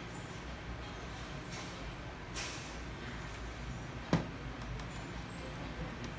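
Handling noise from a plastic 4G Wi‑Fi router being picked up and turned on a wooden desk: a short rustle about two seconds in and a single sharp knock about four seconds in, over a steady low hum.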